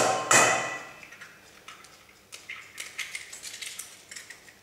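An egg knocked twice against the rim of a stainless steel mixing bowl at the start, each knock leaving the bowl ringing, then quieter crackles and clicks as the shell is pulled open over the bowl.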